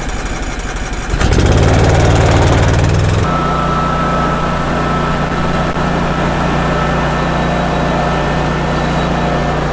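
Sawmill's small gasoline engine running just after starting: it revs up about a second in, then settles about three seconds in to a steady run with a thin high whine over it.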